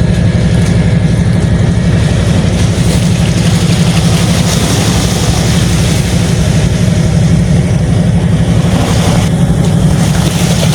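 An engine running steadily close by, a loud low rumble of rapid even pulses with no change in speed.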